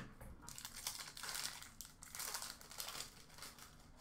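Foil wrapper of an Upper Deck Trilogy hockey card pack being torn open and crinkled: a run of irregular rustles and crackles that thins out near the end.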